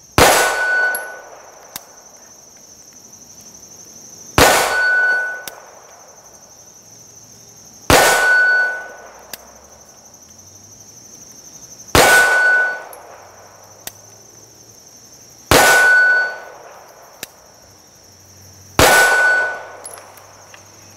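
Six slow, aimed shots from a 9mm Glock 17 Gen5 pistol, about three to four seconds apart. Each is followed by a short ring from the AR500 steel plate behind the paper target, the sign of a hit.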